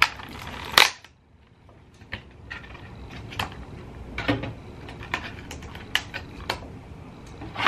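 Clear plastic egg carton clicking and crackling as it is handled and opened. There is one sharp click a little under a second in, then a short lull, then scattered clicks.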